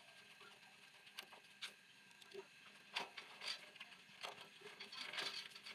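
Faint, scattered clicks and light knocks from small geyser parts being handled while the magnet coil is refitted, a little busier near the end.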